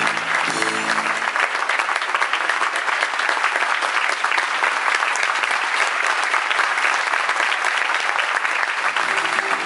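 Audience applauding, a dense, steady clapping throughout. Music plays underneath during the first second or so, fades under the clapping, and comes back near the end.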